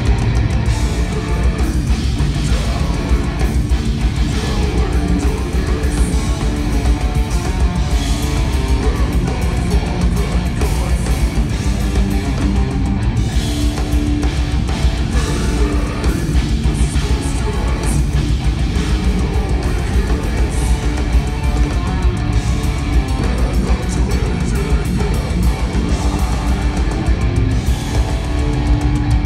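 Live progressive metal band playing loud and dense, with distorted electric guitars, bass and drum kit, recorded on a phone's microphone close to the stage. The music cuts off abruptly at the very end.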